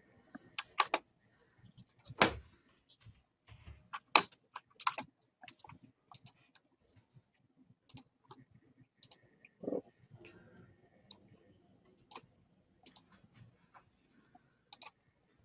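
Irregular clicks and taps of a computer mouse and keyboard, a few a second, with one louder thump about two seconds in.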